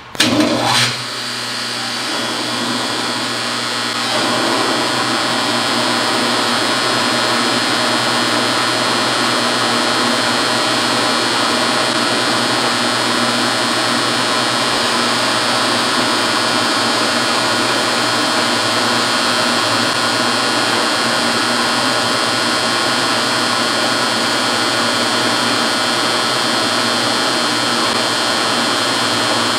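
A motor-driven shop machine switches on with a sharp jolt, spins up over the first few seconds, then runs on loudly and steadily with a dense whirring noise.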